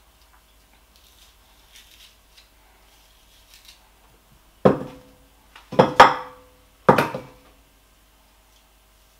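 Metal kitchen utensils clattering: faint scraping and rustling, then four sharp knocks in about two seconds, each with a brief metallic ring.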